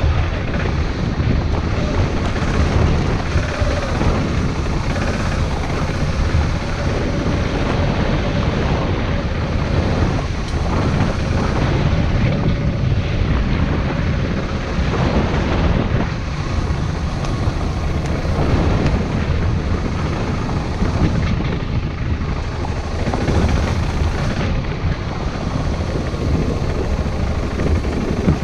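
Wind buffeting the microphone over a steady low rumble, typical of a camera riding on a moving bicycle, with a faint steady whine through the first several seconds.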